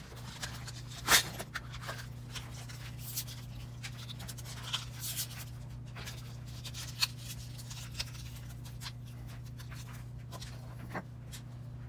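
Scattered clicks and light rattles of a clear plastic parts-organizer box and a small packet being handled while searching for a tap, the loudest click about a second in. A steady low hum runs underneath.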